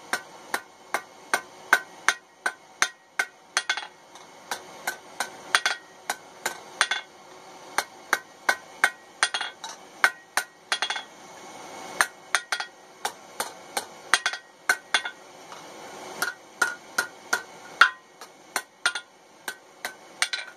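Hand hammer striking hot mild-steel tong stock on an anvil in quick, even blows about three a second, each with a short metallic ring, broken by a few brief pauses: the jaw of a pair of chain-making tongs being scrolled over the anvil's edge.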